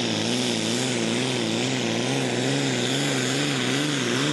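Diesel engine of a Super Farm class pulling tractor running at full power as it drags the weight sled down the track. Its note wavers up and down a few times a second.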